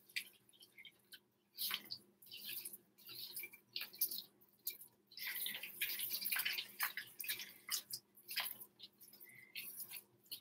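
Silicone spatula stirring thick, wet cupcake batter with chopped pecans in a glass mixing bowl: soft wet squelches and scrapes in uneven strokes with short pauses between them.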